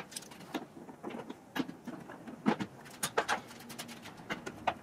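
Irregular light clicks and knocks of hands and a tool working the plastic fasteners of a car's windshield cowl trim.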